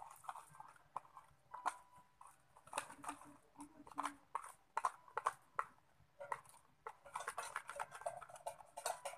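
Homemade glue-and-borax slime being kneaded and mixed by hand, an irregular run of small clicks and squelches, several a second.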